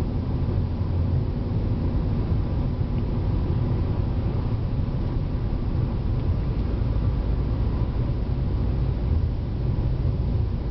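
Steady low rumble of a car at cruising speed, heard from inside the cabin: road and engine noise.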